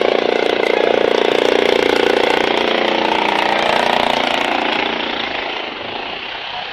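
A vehicle engine running loudly close by, a buzzing engine note with a fast pulse. Its pitch climbs a little around the middle, and it fades somewhat from about five seconds in.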